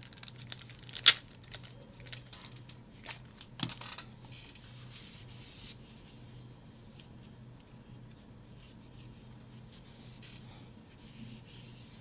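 Hand wiping a laptop's lid and keyboard deck with a white cloth: a soft, faint rubbing. A few sharp clicks of the laptop being handled come in the first four seconds, the loudest about a second in.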